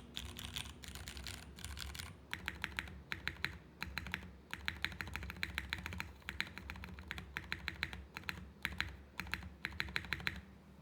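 Typing on a TGR x GAF 910 mechanical keyboard with lubed Cherry MX Clear tactile switches, an aluminium plate and CRP keycaps. A dense clatter for the first two seconds gives way to separate keystrokes in quick, irregular runs, which stop shortly before the end.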